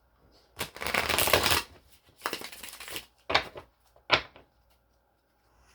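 Tarot deck being shuffled: two quick fluttering bursts of cards riffling, followed by two sharp taps.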